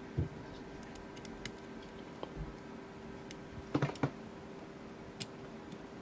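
Sparse small metallic clicks of a dimple pick and tension tool working the pins inside a Mul-T-Lock C-13 pin-in-pin padlock, with a soft knock just after the start and a quick double click about four seconds in the loudest. A faint steady hum sits underneath.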